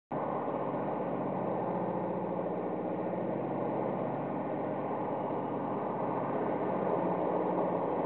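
Steady mechanical drone of basement boiler-room machinery running without change.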